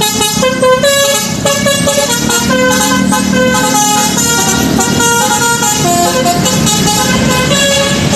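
Telolet basuri multi-tone horn on a vehicle, playing a melody of quickly changing notes over a low engine rumble.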